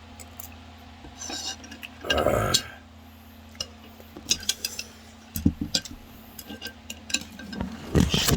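Utensils clinking and scraping against a bowl of ramen during eating, in many short sharp clicks. There is a louder noisy stretch about two seconds in and a cluster of heavier knocks near the end.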